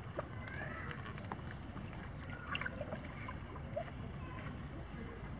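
Water splashing and sloshing as long-tailed macaques swim and paddle in a pool, with scattered small splashes and drips. Under it a steady low rumble of wind on the microphone, and a few brief high chirps.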